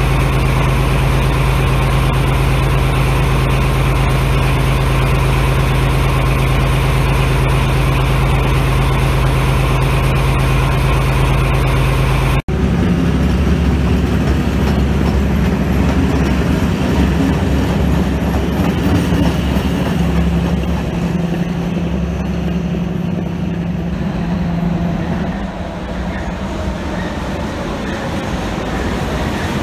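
MÁV M41 diesel-hydraulic locomotive, its engine running steadily at idle. After a sudden cut about twelve seconds in, the engine works under load as the locomotive hauls its train away and the coaches roll past, the sound easing off a few seconds before the end.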